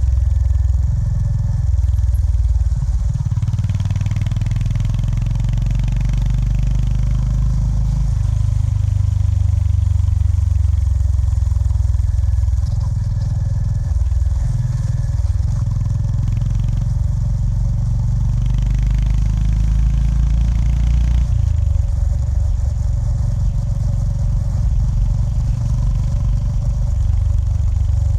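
Honda GB350S's air-cooled single-cylinder engine running while riding, its low note rising and falling several times with the throttle.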